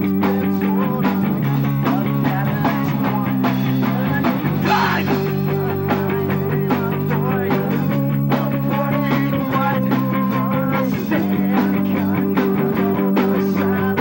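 Rock band playing live: electric guitars strumming chords over a drum kit beating steadily. The chords change a few times.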